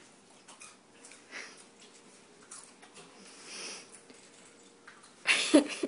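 A person breathing and sniffing faintly, with a few light knocks. Near the end comes a short, loud vocal outburst that falls in pitch.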